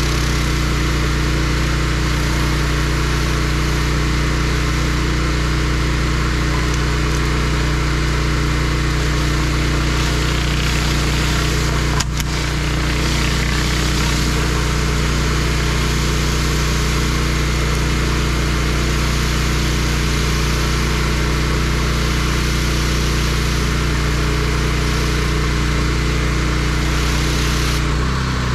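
Hustler 4200 psi gas pressure washer's engine running steadily under load, with the constant hiss of water blasting from a spinning surface cleaner onto concrete. A brief click about twelve seconds in.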